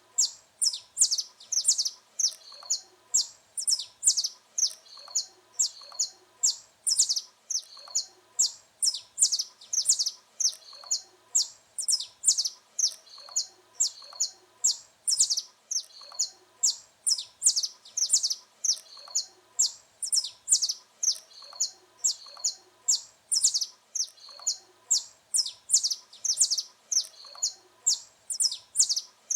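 Saffron finch (canário-da-terra) singing a continuous run of short, high chirped notes, repeated quickly without pause.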